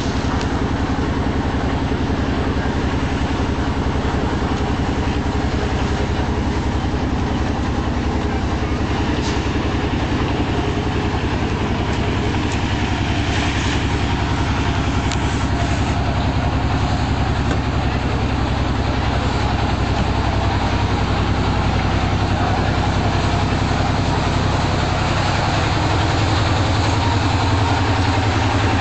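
An engine running steadily with a constant low hum, growing a little louder near the end.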